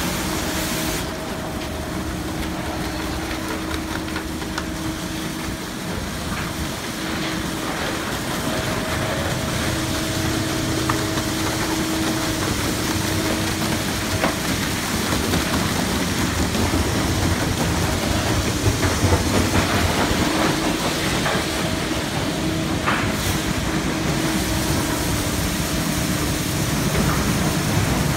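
Cloth tunnel carwash running: water jets and foam spraying onto a car while cloth curtain and rotating wrap brushes wash it, a steady rush of water and equipment noise with a humming tone from the machinery that comes and goes.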